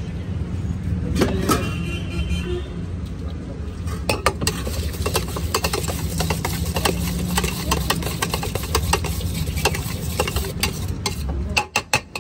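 Steel spoon clinking and scraping quickly against a steel bowl while a snack mixture is stirred, with a few louder knocks near the end, over a steady background rumble of traffic.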